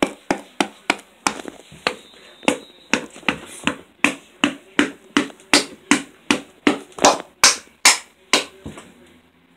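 A rapid, steady run of sharp hand slaps, about three a second, growing louder about seven to eight seconds in.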